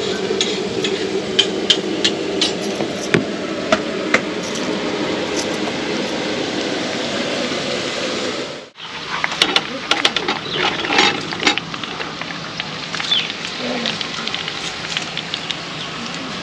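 Cauliflower florets deep-frying in hot oil in an iron kadhai, sizzling with scattered sharp crackles and pops. The sound cuts out briefly about halfway through; before the break there is a steady hum with scattered light clicks.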